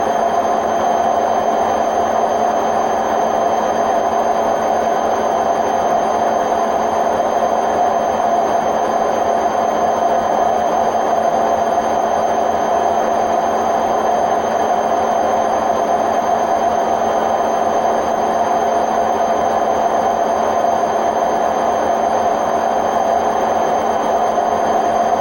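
Hotpoint WMF760 washing machine spinning fast, a loud steady drone with constant whining tones, the noise of its worn-out drum bearings.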